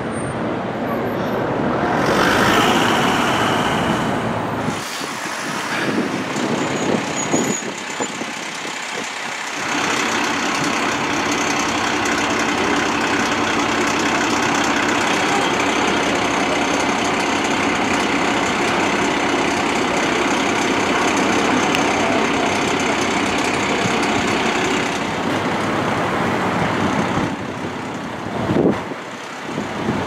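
Fire engines running, including a Magirus aerial ladder truck idling with a steady engine note, under heavy wind noise on the microphone. The sound changes abruptly several times.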